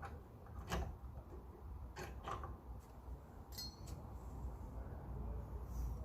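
A few light metallic clicks and clinks, one with a brief ring, as the pad retaining pins are fitted back into a brake caliper.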